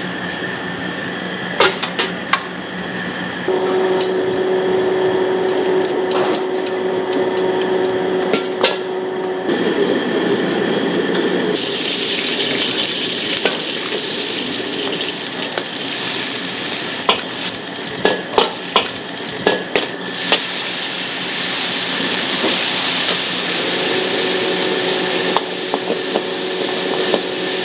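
Metal ladle scraping and clanking against a steel wok as shrimp and pork sizzle in it over a charcoal stove, with clusters of sharp strikes; the sizzle grows louder in the second half.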